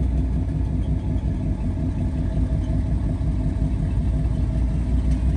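A 1994 Chevrolet S10 pickup's 4.3-litre V6 engine idling steadily.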